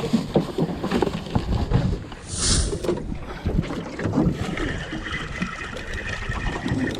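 Wind buffeting the microphone on a small fishing boat, with scattered knocks and handling clatter and a short hiss about two seconds in.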